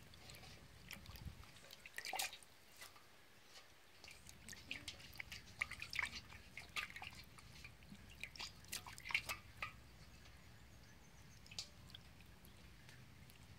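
Water dripping and pattering from freshly washed leafy greens draining in a plastic colander, as scattered small ticks that come thickest around the middle.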